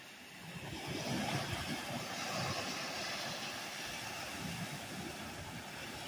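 Small lake waves breaking and washing up onto a sandy shore, a steady rushing surf with a low, uneven rumble underneath, swelling about a second in.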